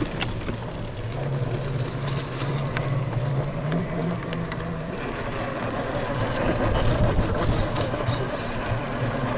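Scale RC crawler truck's electric motor and geared drivetrain running with a steady hum that shifts pitch about five seconds in, with scattered clicks and scrapes of tyres on rock.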